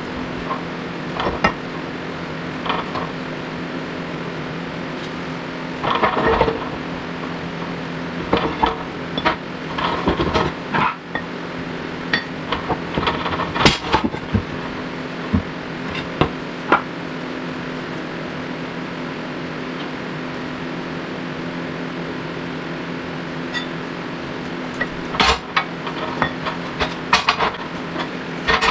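Scattered metal clinks and clanks of tools and parts being handled, busiest in the first half and again near the end, over a steady low hum.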